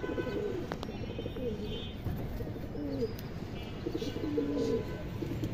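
Domestic pigeons cooing: a run of low coos that glide up and down in pitch, one after another.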